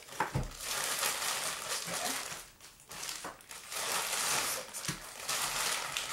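Clear plastic zip bags holding small servo motors crinkling as they are handled and sorted, with a couple of soft thumps as bags are set down.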